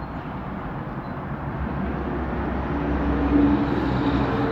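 A heavy vehicle's engine running and growing louder, a low rumble joined by a steady hum about halfway through.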